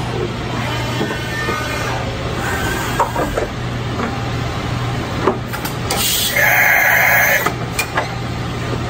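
Enshu 650VX CNC vertical mill running: a steady machine hum with a few short squeals that fall in pitch, and about six seconds in a loud hiss with a held tone that lasts over a second.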